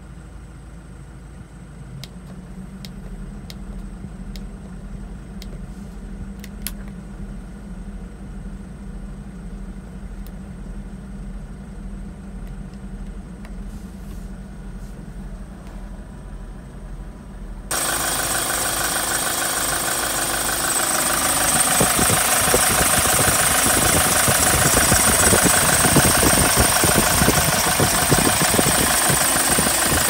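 Hyundai Porter II truck's common-rail diesel engine idling: low and muffled at first, then abruptly much louder a little past halfway, with a steady diesel clatter once the engine compartment is open.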